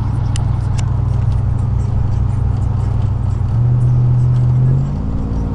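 2000 Chevrolet Silverado's 4.8-litre V8 droning steadily while driving, heard from inside the cab. The muffler has had its fiberglass packing taken out. A little past the middle the drone swells louder for about a second, then settles onto a slightly different note.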